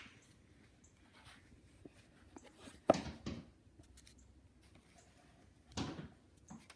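A bird knocking on a door with its beak: scattered faint sharp taps, and two louder knocks, the louder about three seconds in and another near six seconds.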